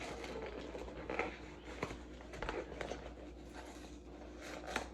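Light kitchen handling noises: a few faint clicks and knocks of things being moved and set down during cake-mix preparation, over a low steady hum.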